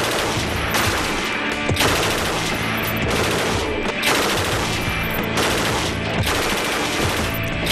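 Mk48 belt-fed machine gun in 7.62 mm NATO firing long full-auto bursts, with short breaks between them.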